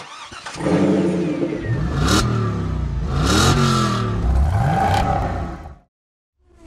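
Car engine revving, its pitch sweeping up and down, with two sharp whooshes about two and three and a half seconds in; it cuts off abruptly shortly before the end.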